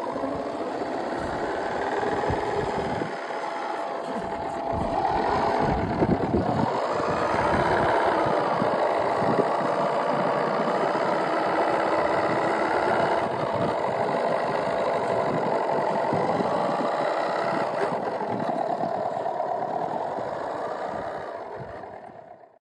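A 3D-printed 1/8-scale RC Land Rover Discovery 5 driving through snow: its drive motor and gears whine under the simulated engine sound played by its onboard sound unit. The pitch rises and falls with the throttle, and the sound fades out near the end.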